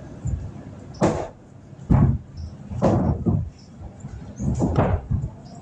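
A series of irregular loud thumps, about six in all, with the heaviest about two and three seconds in and a close group of them near the end.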